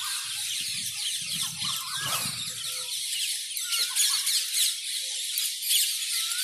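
Many birds chirping together in a dense, continuous chorus of quick high-pitched notes, with a few lower whistled notes now and then.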